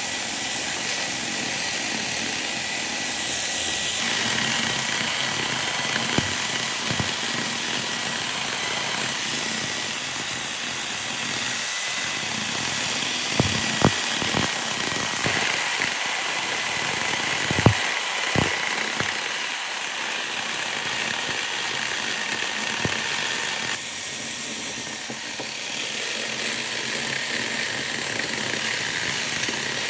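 Electric chainsaw running steadily as its chain cuts into the top of a wood stump, a constant motor whine under the cutting noise, with a few sharp clicks around the middle.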